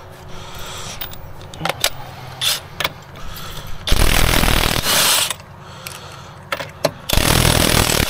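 Power tool running in two loud bursts of about a second and a half each, used on a car wheel or jack during a roadside tire change, after several sharp metallic clicks and clanks.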